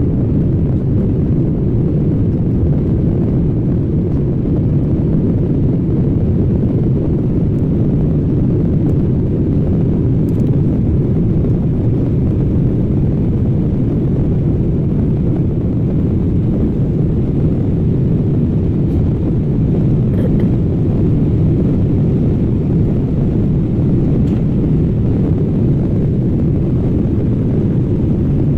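Airliner cabin noise during the climb after takeoff: a steady, loud, low rumble of engines and airflow.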